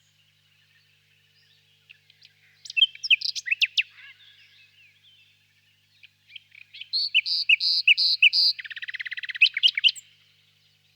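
Nightingale singing two phrases of loud whistled notes with pauses between them. The second phrase has a run of about five repeated notes and ends in a fast rattling trill.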